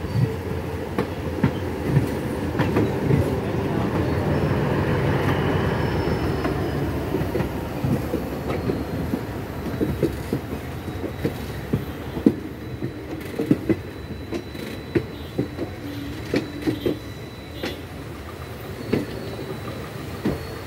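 A train running along the track, its wheels clicking and knocking irregularly over rail joints and points, over a steady running rumble that is loudest early and eases off in the second half.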